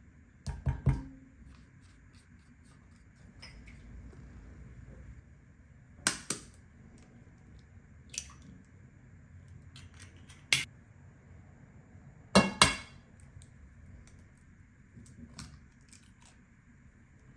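Dishes and kitchen utensils being handled: about six separate sharp clinks and knocks, several in quick pairs, the loudest pair about twelve and a half seconds in.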